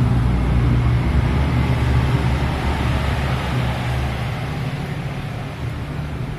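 Steady low rumble of background road traffic, a little louder over the first few seconds and easing off after.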